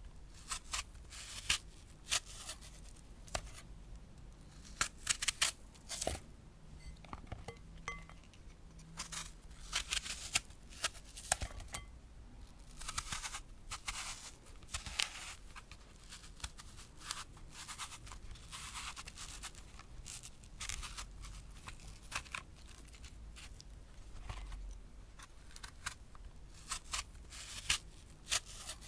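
A crisp green apple being cut: many short, sharp crunching cracks at an uneven pace, with a few longer drawn-out cuts in the middle.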